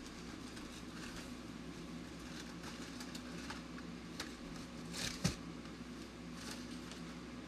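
Steady low room hum, with a few soft knocks and rustles about four to five seconds in as cardboard snack-bar boxes are put away in a closet.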